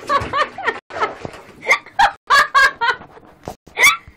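A person laughing in short, high-pitched bursts.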